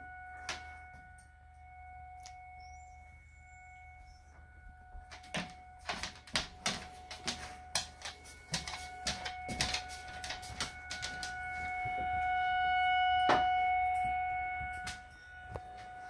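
Outdoor tornado warning siren sounding at a steady pitch, swelling louder past the middle and easing off again near the end. A run of sharp clicks and taps from about five seconds in.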